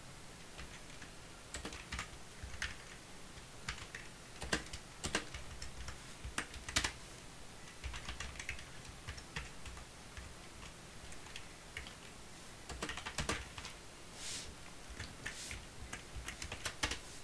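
Typing on a computer keyboard: irregular runs of key clicks with a short pause about halfway through.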